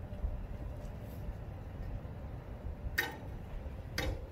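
A steel pry bar striking the old concrete outlet baffle inside a septic tank to break it off: two sharp clanks about a second apart near the end, each ringing briefly, over a steady low rumble.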